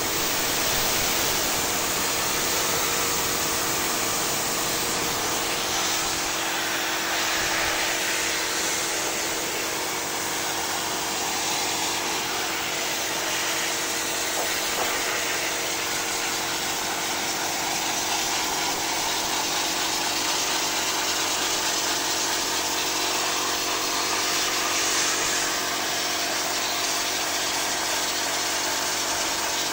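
Small electric pressure washer running steadily with a constant motor hum, its water jet hissing against the aluminium fins of a split air conditioner's evaporator coil as the clogged coil is washed clean.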